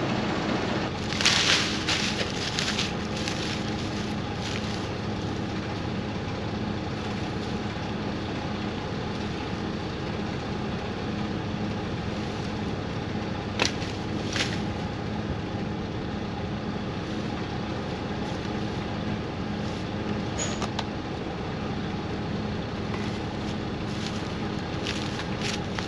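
Bell 4206D tractor's diesel engine running steadily at idle, a low even hum. A few sharp clicks and rattles stand out over it, the loudest about a second in and about halfway through.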